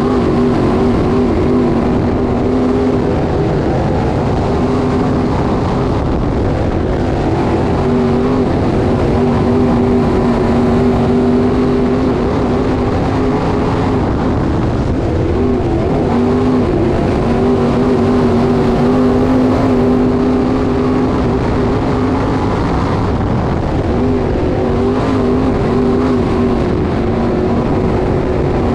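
Dirt late model race car engines, 604 crate V8s, running hard at a steady high pitch, with brief wavers in pitch every few seconds.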